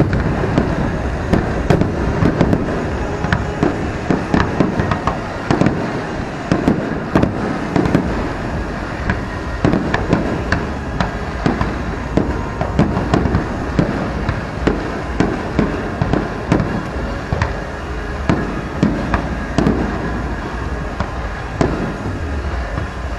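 Aerial fireworks display: a dense, continuous run of shell bursts, several bangs a second with crackling between them over a low rumble, easing slightly near the end.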